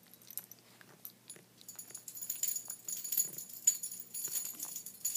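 Small metal tags or a bell on a dog's collar jingling as the dog moves, with scattered light clicks. The jingling grows louder about two seconds in.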